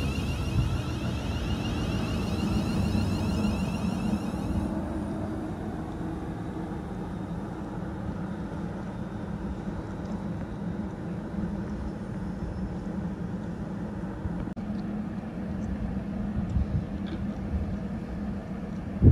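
A train on the line, running with a steady low hum and rumble. A high hiss over it cuts off about five seconds in.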